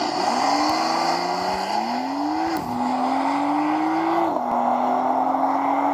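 Sports car engine accelerating hard, its pitch climbing and then dropping sharply at two gear changes, about two and a half and four seconds in, before settling into a steadier run. A steady rushing noise of the car at speed runs underneath.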